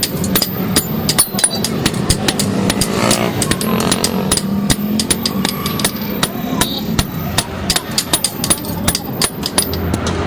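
Hammers striking metal in a blacksmith's forge: many quick, irregular metallic blows, several a second, with voices faintly underneath.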